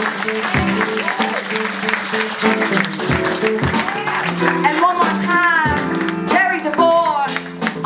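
Music with guitar, held instrumental notes and a voice singing over it, with some crowd clapping.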